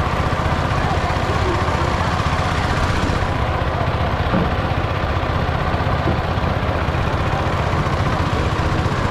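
A motor running steadily, a dense low rumble without pauses or changes in pitch.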